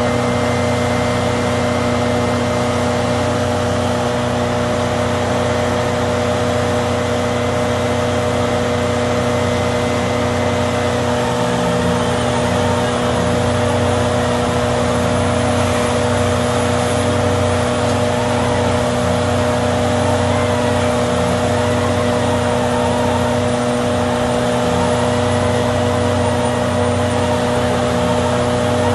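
Arjes VZ 950 Titan shredder running steadily while shredding mattresses: a constant heavy machine drone with several steady hum tones, unchanging in level.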